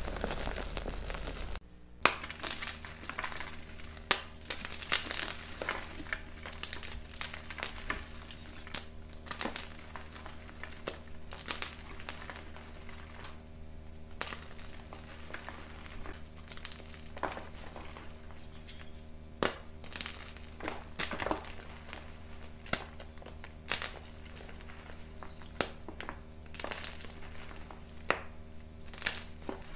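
Fresh gym chalk crushed and squeezed by hand: soft crumbling with frequent sharp crunches and crackles as the blocks and loose powder break apart. There is a brief break about two seconds in.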